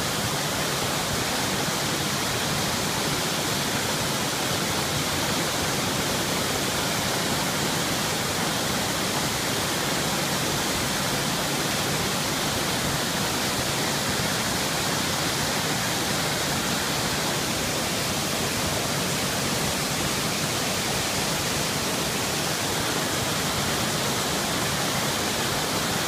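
Artificial pool waterfall: several streams of water pouring from a rock wall into the pool, a steady rush of falling and splashing water.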